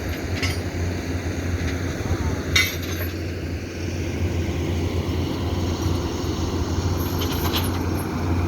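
Kobelco SK200 excavator's diesel engine running steadily, with a few sharp metallic clanks, the loudest about two and a half seconds in.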